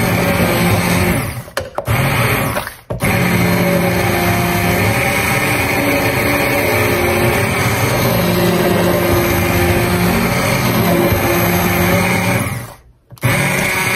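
Handheld immersion blender running in a slow cooker full of soft cooked apples, pureeing them smooth. The motor cuts out briefly twice, about two and three seconds in, and again shortly before the end, then starts up again.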